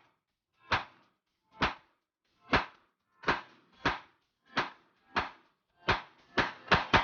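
A series of about eleven sharp bangs, each short and cut off quickly, spaced a little under a second apart and coming faster near the end.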